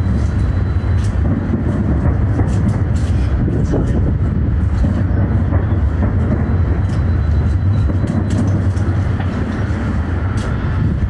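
A dense fireworks barrage heard from a distance: a continuous low rumble of overlapping booms, with many sharp crackles and pops on top.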